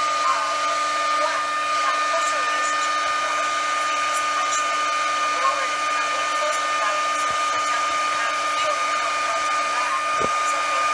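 Hair dryer running steadily, a constant whine over the rush of blown air.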